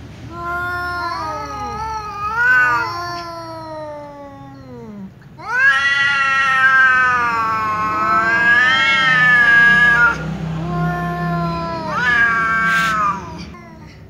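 Two tom cats, a black-and-white tuxedo and a ginger, caterwauling at each other in an angry standoff. Their long, wavering yowls overlap in the first few seconds. A single long, loud yowl runs from about a third of the way in until two-thirds through, and a final yowl jumps up in pitch near the end.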